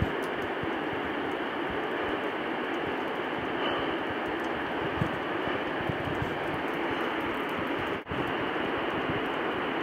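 Steady, even rushing roar of a waterfall, with a brief dropout about eight seconds in.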